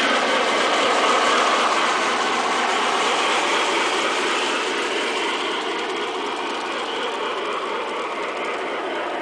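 Aristo-Craft Pacific model steam locomotive and its train running on the garden track: a steady mechanical rattle of wheels and gearing that slowly fades.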